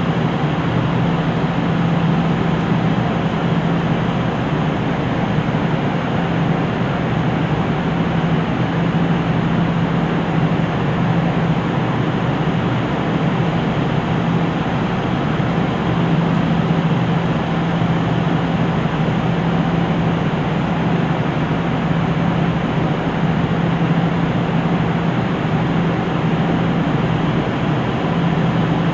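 KiHa 75 diesel railcar's engine idling steadily while the train stands still, heard from inside the passenger car as a constant low hum.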